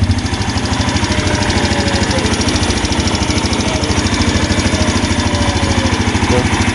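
Yamaha Jupiter Z1's single-cylinder four-stroke engine idling steadily with a fast even beat, just after being started. The engine is being checked for a ticking noise from its front, which the mechanic traces to loose exhaust-valve clearance.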